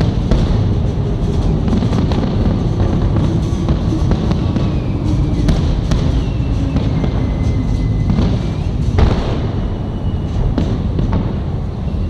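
Fireworks salute going off: a dense run of booms and sharp bangs over a constant low rumble, with a few thin whistling tones gliding slowly downward in the middle.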